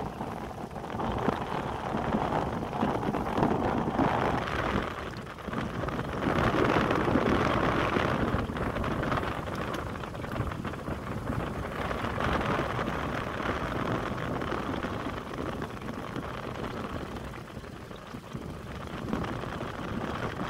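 Wind buffeting the microphone over choppy water, with water splashing, swelling in gusts.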